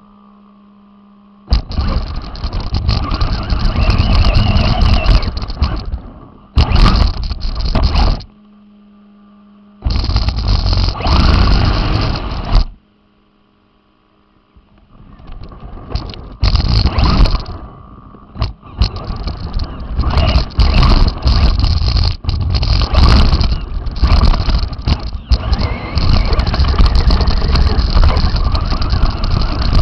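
Radio-controlled car driving in bursts of throttle, its drivetrain and tyres picked up by the onboard camera as a loud, rough rushing noise. It stops several times; in two of the stops only a steady low hum remains, and one stop is nearly silent.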